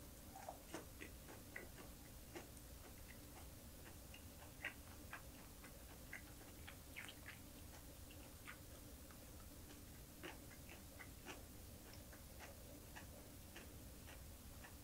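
Faint, irregular wet clicks and soft crunches of a person chewing green chili pepper with small dried anchovies.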